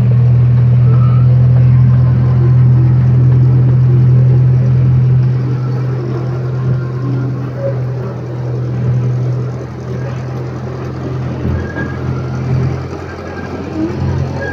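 Ride train's engine running steadily with a low drone, louder for the first few seconds and then easing off.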